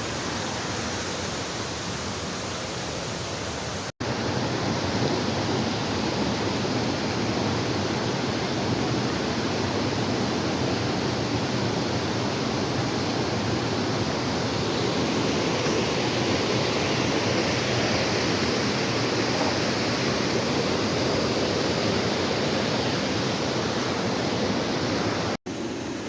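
Waterfall rushing: a steady, even roar of falling water, broken by two brief dropouts where the footage cuts, one about four seconds in and one near the end, and a little louder after the first.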